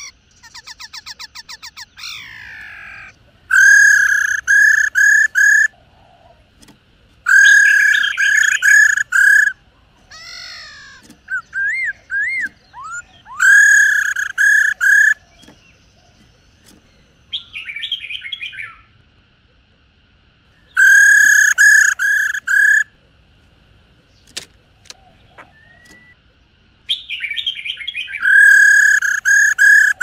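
Black-throated laughingthrush calling. Loud bursts of about five notes each, every five or six seconds, with quieter whistled notes and a quick trill between.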